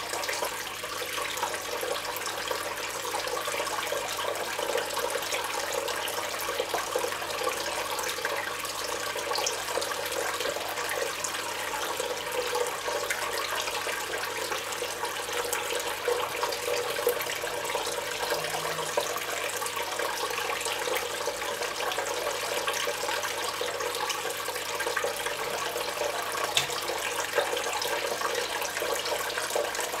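Water running and splashing steadily down a small homemade waterfall fountain.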